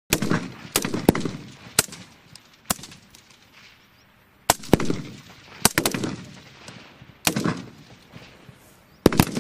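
Rifle fire on an outdoor range: about a dozen single shots at irregular intervals, some in quick pairs about a quarter-second apart, each followed by a short echoing tail.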